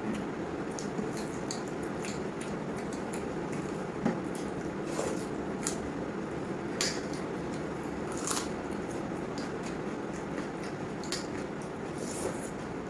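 Wet squelching of panta bhat (water-soaked rice) being mixed with mashed potato on a plate, with scattered light clicks and scrapes against the plate over a steady background hiss.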